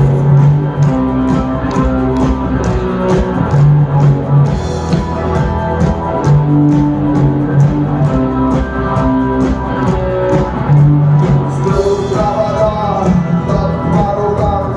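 Rock band playing live: electric guitars, bass and drum kit with a steady beat.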